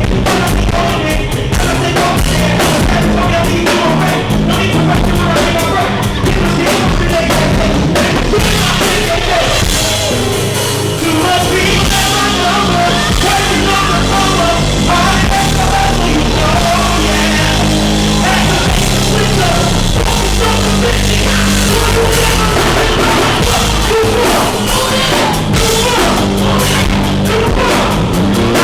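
Live band playing loud, rock-leaning music with a drum kit and some singing. The recording is distorted because the venue's sound system overloaded the recording microphone.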